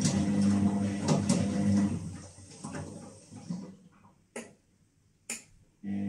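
Whirlpool TDLRS 70210 top-loading washing machine running: a steady motor hum with knocks over it, fading out about two seconds in. Two short sharp sounds come near the end.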